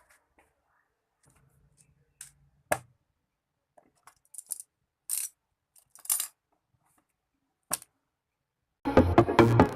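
Scattered light clicks and clinks of small hard objects being handled, about half a dozen, the sharpest near the three-second mark. Electronic dance music starts loudly near the end.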